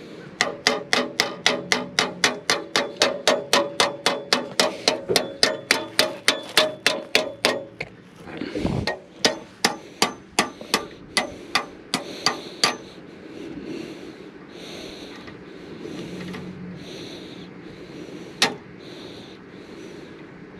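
A hammer striking in a fast, even run of about four blows a second for several seconds. After a short break comes a slower run of blows, and a single sharp knock sounds near the end.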